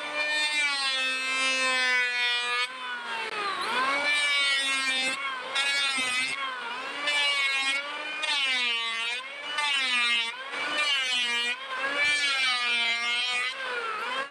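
Handheld electric planer running over teak boards. Its motor whine dips in pitch each time the blades bite into the wood on a pass, then climbs back between passes, every second or two.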